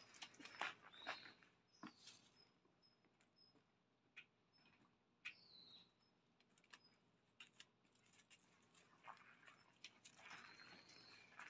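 Faint sounds of dogs moving and playing, with scattered clicks and rustles near the start and again near the end. In the middle there is a series of faint short high chirps, about two a second.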